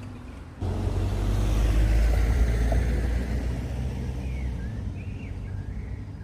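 A road vehicle passes close by: a deep rumble that starts suddenly about half a second in, is loudest a second or two later, then fades away. A few short bird chirps come near the end.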